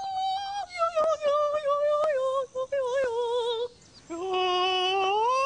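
High-pitched singing voice of the commercial's singing rabbit, holding wavering notes. It breaks off briefly a little before four seconds in, then returns on a low note that glides up near the end.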